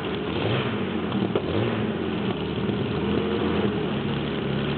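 Bluebird K3 hydroplane's V12 aero engine running at a steady fast idle, its pitch wavering slightly in the first second or so before settling.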